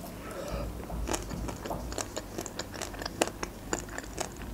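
Biting into and chewing a chocolate-glazed ice cream bar, the glaze cracking in many small irregular clicks and crunches.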